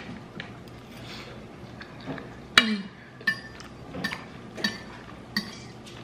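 Cutlery clinking against a plate while eating: a series of sharp, short-ringing clinks, the loudest about two and a half seconds in.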